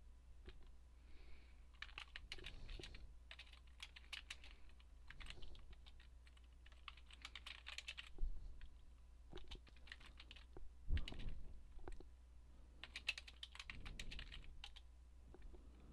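Computer keyboard typing in several short bursts of key clicks with pauses between them, with a few louder key strokes, over a faint steady low hum.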